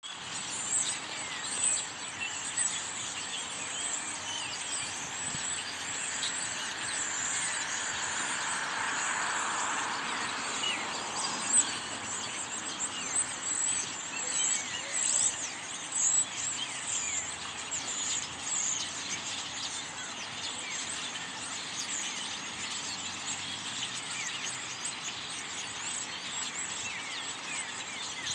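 A large flock of birds perched in a tree, calling all at once: a dense, unbroken chatter of many overlapping short chirps and squeaks. A passing vehicle swells underneath about a third of the way in.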